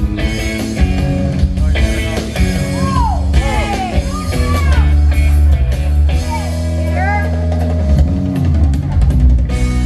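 Live rock band playing an instrumental passage: drum kit, bass and electric guitar, with lead notes bending up and down several times.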